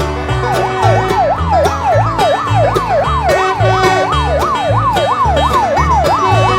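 A fast yelping siren that rises and falls about two and a half times a second starts about half a second in, over an upbeat backing track with a steady beat.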